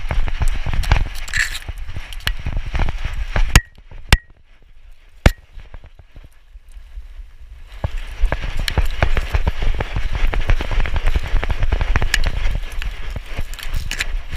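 Rapid thumping and rustling of a running dog's paws and body, picked up close by a GoPro camera strapped to its chest harness. The thumping drops away about three and a half seconds in, leaving a quieter stretch broken by a few sharp clicks, then resumes near eight seconds.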